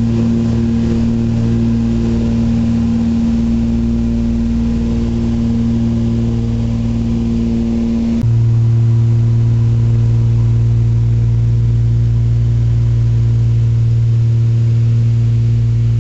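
Cabin drone of a Britten-Norman Trislander's Lycoming six-cylinder piston engines and propellers in cruise, a steady, loud, deep hum. The pitch mix shifts abruptly about halfway through.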